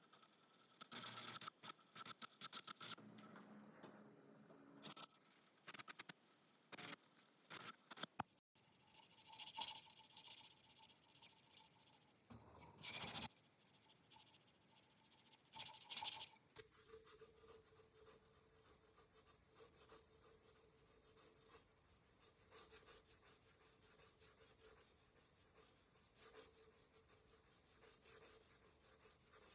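Hand rubbing and scraping on a rusty steel knife blade, in scattered short strokes at first. A bit past halfway it turns into fast, steady back-and-forth rubbing, as when sanding or scrubbing off rust.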